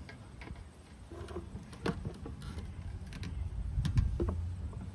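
Hands handling plastic parts at a lawnmower's oil fill neck: scattered light clicks and knocks, a sharper one about two seconds in and the loudest near the end, over a low rumble.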